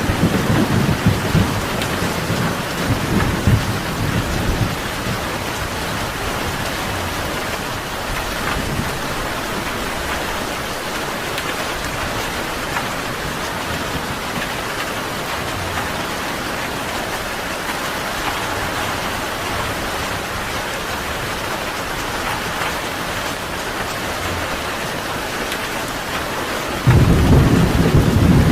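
Steady rain, with a low rumble of thunder at the start that dies away after about five seconds, and a new, louder thunder rumble breaking in suddenly near the end.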